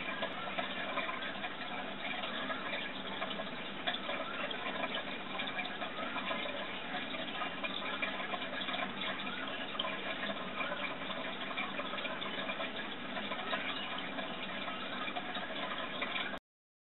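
Steady trickling, bubbling water in a turtle aquarium, cutting off suddenly about a second before the end.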